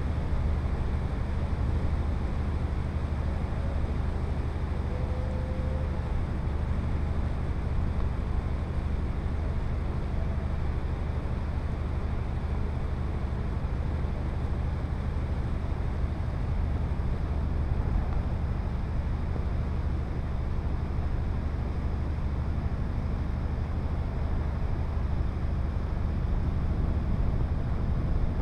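Boat engine running at a steady drone, heard from on board, with a steady hiss of wind and water.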